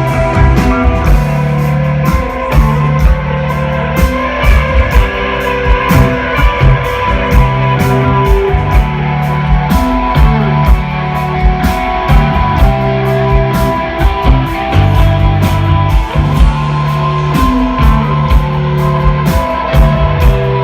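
Live rock band playing an instrumental passage on electric guitar, bass and drum kit, the bass line shifting note every second or two under steady drum and cymbal hits.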